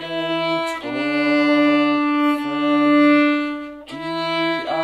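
Violin playing a simple bowed exercise on the D string: repeated first-finger E notes, a long open D from about a second in, and back to E near the end. A man's voice sings along an octave below.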